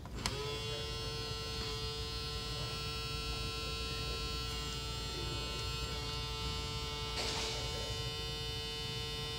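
A small electric motor on a switch-and-motor trainer board starts with a click and runs at a steady, unchanging buzzing hum.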